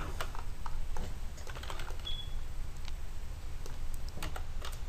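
Computer keyboard keys pressed now and then, a scattering of separate light clicks at uneven spacing, over a faint low hum.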